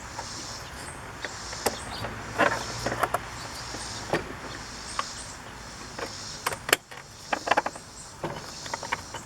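Scattered clicks and knocks of plastic connectors and door parts being handled as a car door's wiring is plugged back in, over a faint steady low hum.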